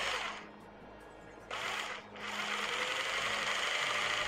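Black & Decker 600 W pendulum jigsaw running unloaded at its slowest speed setting, a steady reciprocating motor buzz. It cuts out about a third of a second in, gives a short burst about a second and a half in, then starts again about two seconds in, its pitch rising as it comes up to speed.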